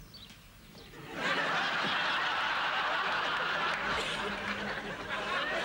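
An audience laughing, the laughter breaking out about a second in and carrying on loudly.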